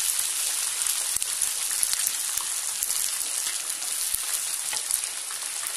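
Chopped onions sizzling steadily in hot oil in a frying pan while being stirred with a wooden spatula, with occasional light clicks of the spatula against the pan. The onions are nearly done.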